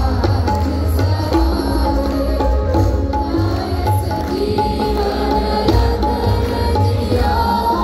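Live devotional band music with acoustic and electric guitars over steady hand-drum percussion, with a held, sustained melody line.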